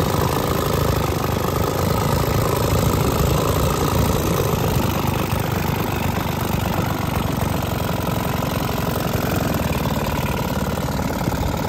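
1925 Caille Pennant 5-speed outboard's small twin-cylinder two-stroke engine, about 2¾ horsepower, running steadily with its variable-pitch propeller set to reverse.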